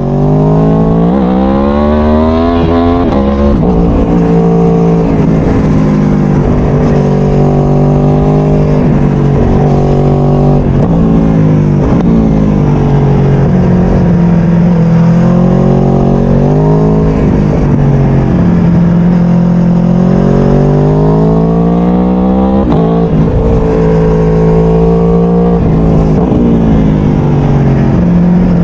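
Aprilia Tuono V4 1100's V4 engine under way, loud, its pitch climbing under acceleration and dropping back again and again.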